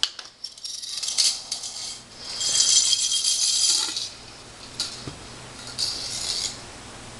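Metal parts of a Remington 870 pump shotgun clicking and rattling as it is taken apart: the magazine tube is unscrewed while held against its spring, and the barrel is worked free. A longer scraping rattle comes about two and a half seconds in, and a shorter one near six seconds.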